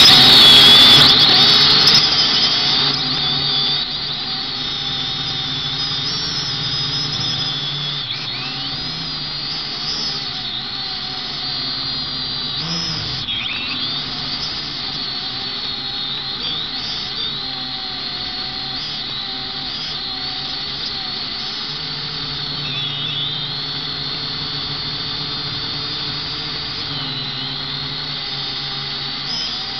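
Potensic quadcopter's electric motors and propellers whining, heard from the drone's own onboard camera. The pitch wavers up and down as the throttle changes; it is loudest for the first couple of seconds, then settles to a steady level.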